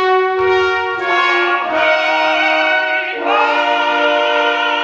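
Operatic tenor singing at full voice over an orchestra: held notes with a wide vibrato, moving to a new note about a second in and again just past three seconds.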